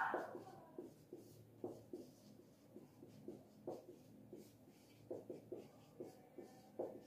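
Marker pen writing on a whiteboard: short, quiet strokes in an uneven rhythm, with a louder, higher stroke right at the start.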